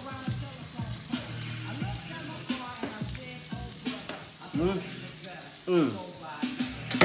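Food sizzling in hot pans, a steady frying hiss, with a few short clicks of a utensil.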